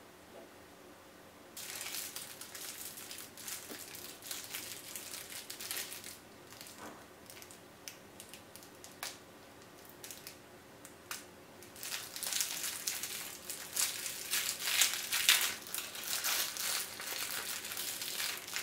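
Clear plastic bag crinkling as hands unwrap a small mochi squishy toy. The crinkling starts about a second and a half in, eases to scattered crackles in the middle, and is loudest in the last third.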